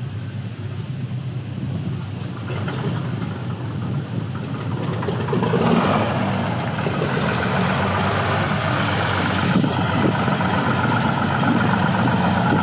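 An engine running steadily, growing louder about five and a half seconds in and staying loud.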